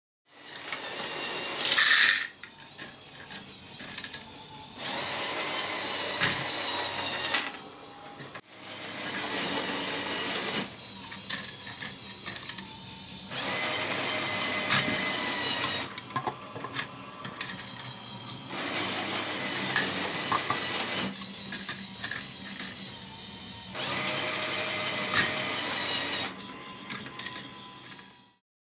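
LEGO electric motors driving Technic gear trains, whirring with a high whine in repeated stretches of about two to three seconds, roughly every five seconds, as the mechanism shifts the containers a step at a time. Between the stretches there is a quieter mechanical hum with scattered clicks from the plastic parts.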